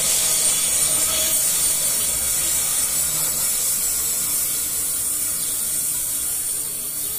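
Freight train of loaded coal gondola wagons rolling away on the rails: a steady rolling and hissing of steel wheels on track that slowly fades as the last cars recede.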